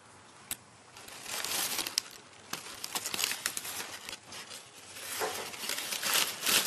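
Crumpled newspaper packing in a cardboard box rustling and crinkling as a cat paws and shifts in it, in three bursts with sharp crackles, the loudest near the end.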